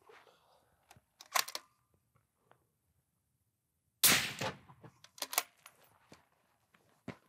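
A single suppressed rifle shot about four seconds in, a sharp crack with a short echoing tail, the loudest sound here. Sharp metallic clicks of the rifle being handled come shortly before and about a second after it.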